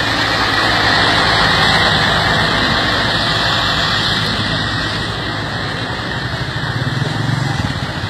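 Road vehicle engine and tyre noise from traffic going by, slowly fading over several seconds. Near the end a second engine comes up with a low, pulsing running sound.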